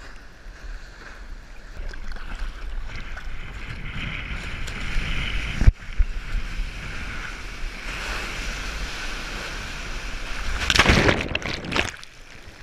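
Rushing water and wind buffeting the microphone as a surfboard moves across the ocean, with a sharp thump about halfway through. Near the end comes a loud whoosh of breaking whitewater washing over the camera.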